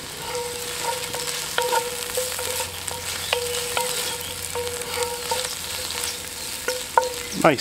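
Chopped onion, red pepper and garlic sizzling steadily in oil in a cast iron Dutch oven, softening over a steady medium heat, while a wooden spoon stirs them, scraping and tapping against the pot every second or so.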